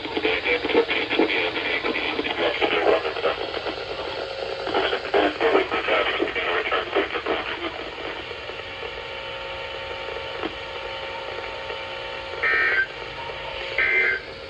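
NOAA Weather Radio receiver playing a garbled broadcast voice through static, which gives way to hiss with faint steady tones. Near the end come two short, shrill data bursts of the SAME digital header that opens an Emergency Alert System transmission, here a weekly test.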